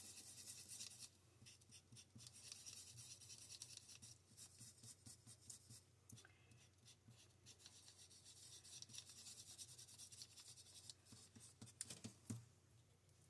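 A paintbrush stirring acrylic paint on brown paper: faint scratching and swishing of the bristles against the paper, coming and going in stretches, with a couple of soft knocks near the end.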